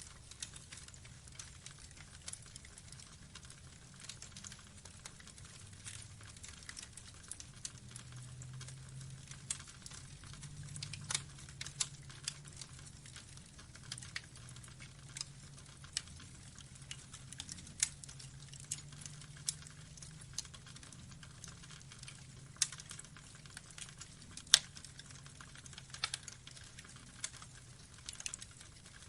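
Burning logs crackling: irregular sharp pops and snaps over a low steady rumble of flames, with one sharper pop late on.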